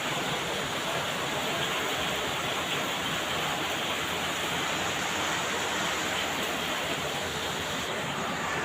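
Heavy rain falling in a steady, even hiss, with no thunderclap or other distinct event.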